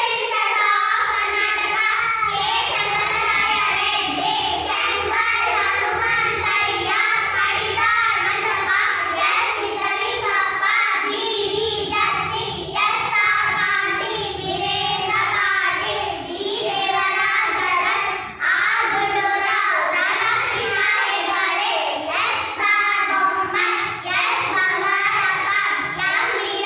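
A group of young girls singing together in unison, their voices running on with only brief pauses for breath.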